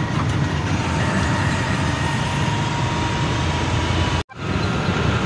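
Engine and road noise of a vacuum truck heard from inside its cab while driving on the highway, a steady drone with a faint whine above it. The sound cuts out for an instant about four seconds in.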